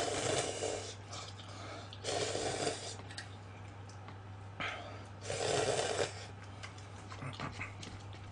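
Instant cup ramen noodles being slurped: three long, wet slurps a couple of seconds apart, with small chewing ticks near the end. A steady low electrical hum runs underneath.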